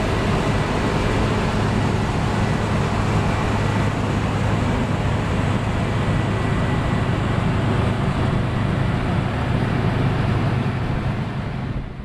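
New Holland CX840 combine harvester threshing, its engine and threshing machinery running with a steady, dense low hum. It fades out near the end.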